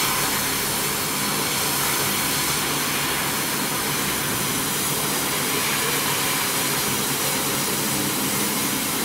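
150W CO2 laser cutting machine at work cutting plywood: a steady rushing hiss of air with a faint low hum beneath.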